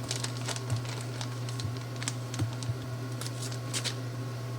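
Scattered light clicks and taps from dishes and utensils being handled in a kitchen, over a steady low hum.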